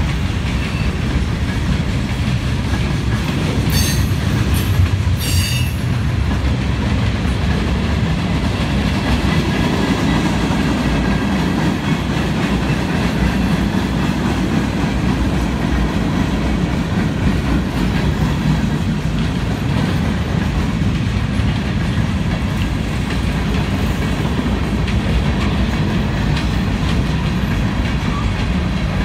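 Freight cars of a Union Pacific mixed freight rolling past close by: a steady heavy rumble of steel wheels with clickety-clack over the rail joints. A few brief high-pitched wheel squeals come about four to five seconds in.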